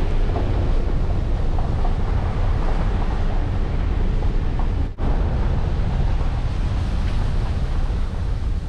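Car driving on a wet gravel road: a steady low rumble of tyres and road noise with wind buffeting the microphone. The sound cuts out for an instant about five seconds in.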